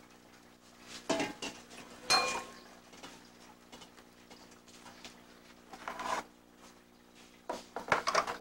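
Metal pans and trays clanking as they are handled and set down on a counter: several separate clatters, the loudest about two seconds in with a brief metallic ring, and a quick cluster near the end. A steady low hum runs underneath.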